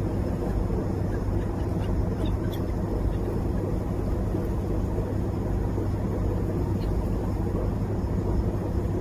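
A boat's engine running at a steady low drone, with an even rush of water and wind noise over it.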